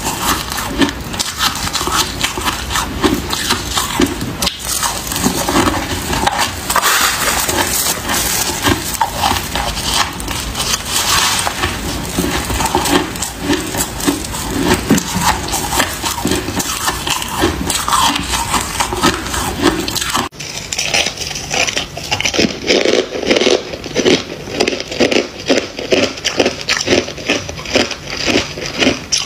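Close-miked crunching of freezer frost as it is squeezed in gloved hands, bitten and chewed: a dense, continuous crackle. About twenty seconds in the sound changes abruptly to more regular crunches of frost being chewed off a spoon.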